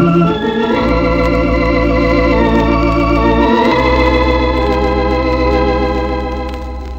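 Organ playing sustained chords over a deep bass in an instrumental passage of a vintage LP recording, the chords changing about a second in and again around three and a half seconds, easing off near the end.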